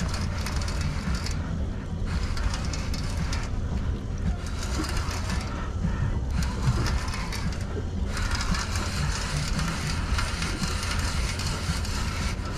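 Steady low rumble with a hiss over it, the sound of a small fishing boat out on open water: the engine running at trolling speed, with wind on the microphone.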